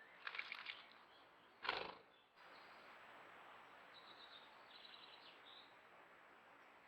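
Small bird bathing in a shallow pond: two brief bouts of splashing and wing flutter in the first two seconds, the second the loudest. Faint high chirps follow about four to five and a half seconds in, over a low hiss.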